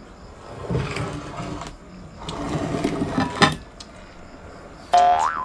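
Close-up eating sounds: mouth noises of chewing food in two stretches of about a second each. Near the end comes a short hummed sound that rises and then falls in pitch.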